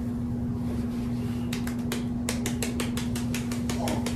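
Small plastic cinnamon spice bottle shaken hard over a cake, a quick even run of clicks about six a second starting about one and a half seconds in, the bottle running low on cinnamon. Under it a steady low hum.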